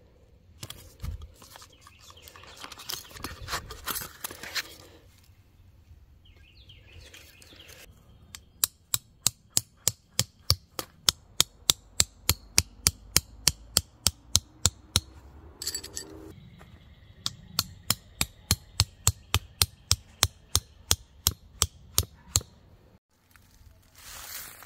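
Rapid, even strikes of an axe's poll driving a tent stake into the ground, about four blows a second, in two runs with a short pause between. A few seconds of rustling handling come before them.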